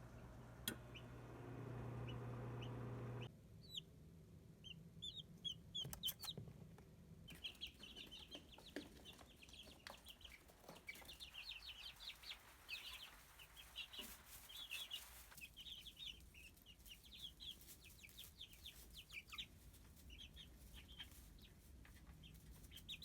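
Young chickens peeping: many short, high chirps repeating quickly, with a low steady hum at the start that cuts off after about three seconds.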